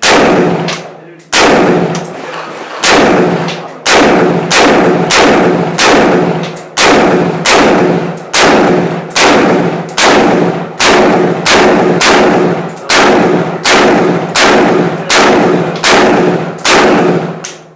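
AR-15 rifle chambered in 5.45×39 mm firing a rapid semi-automatic string of about twenty loud shots, a little under a second apart, each trailing off in a short echo. The string ends near the end, as the magazine runs empty.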